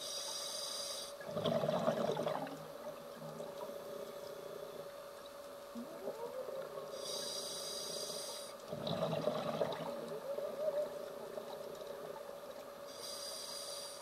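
Scuba diver breathing through a regulator underwater: a short hissing inhale, then a burst of exhaled bubbles, twice, with a third inhale near the end. A steady hum runs underneath.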